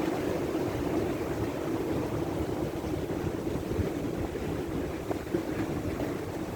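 Wind buffeting the microphone, a flickering low rumble over a steady background hum that holds throughout.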